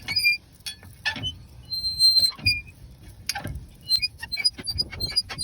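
Car jack being cranked down to lower the car: irregular metal clicks and knocks with short high squeaks.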